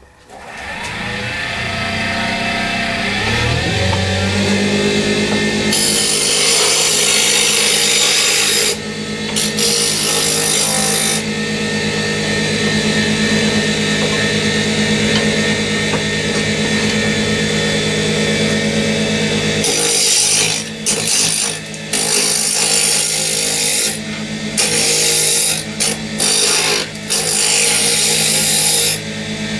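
Axminster Hobby Series AH-1218VS variable-speed wood lathe starting and spinning up, its hum rising in pitch over the first few seconds and then running steady. From about six seconds in, a turning tool cutting the spinning wood adds a loud scraping hiss that comes and goes through the rest.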